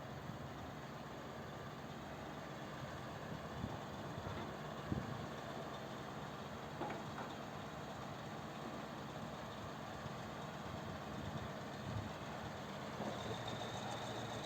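Heavy diesel machine engine idling steadily, with a few short knocks.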